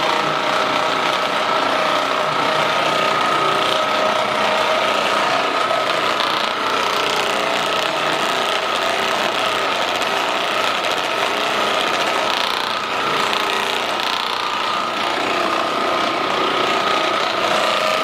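Percussion massage gun running continuously, a steady motorised buzz with an even whining hum.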